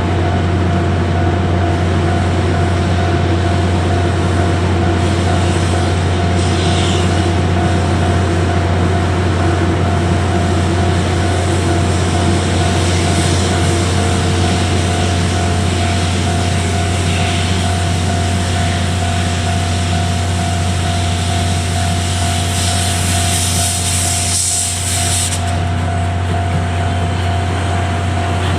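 Train running steadily nearby: a loud, constant low hum with a steady whine over it, and a burst of hissing about 23 seconds in that lasts a couple of seconds.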